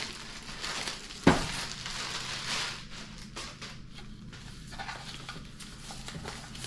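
Wrapping crackling and rustling as a taped-up bookshelf speaker is unwrapped by hand, with one sharp knock about a second in.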